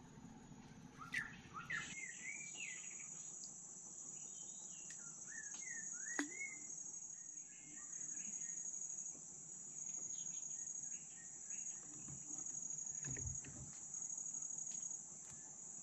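Insects buzzing in a steady high drone that swells louder in stretches of a second or two, with birds calling in short rising chirps in the first few seconds and again around six seconds. A dull low thump comes near the end.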